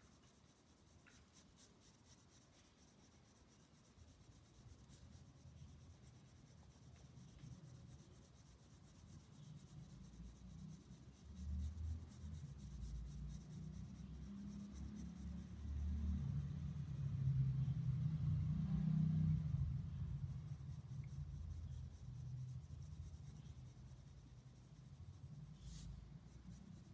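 Graphite pencil shading on drawing paper: quiet, irregular scratching of repeated short strokes. It grows louder in the middle, then eases off again.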